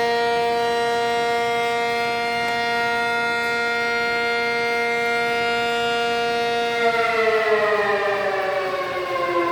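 Civil defense air-raid siren sounding a steady held tone, then starting to wind down, its pitch falling, about seven seconds in.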